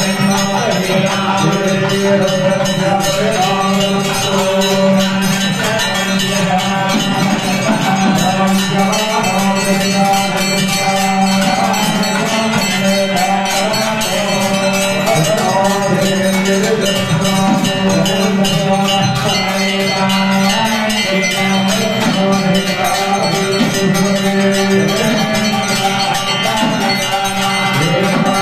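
Temple bells rung rapidly and without pause during an aarti, the lamp-waving worship, over music.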